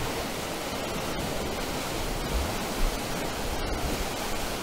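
Whitewater rushing steadily through a concrete spillway channel.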